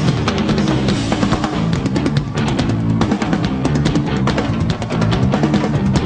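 Rock music with a driving drum kit and bass.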